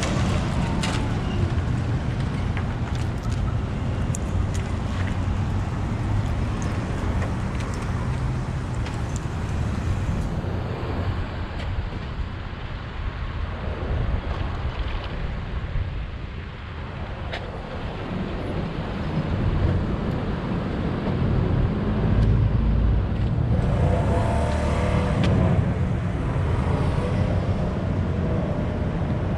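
Road traffic: cars passing, steady and fairly loud, with one vehicle louder near the end.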